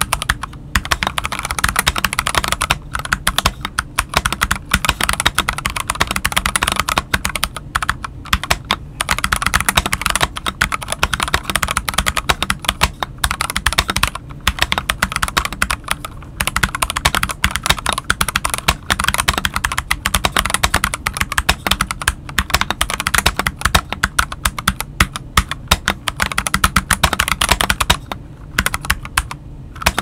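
Fast, continuous typing on a stock Akko 3084B Plus mechanical keyboard with Akko Jelly Purple tactile switches and ASA-profile keycaps: a dense stream of key clacks with a few brief pauses and a longer one near the end.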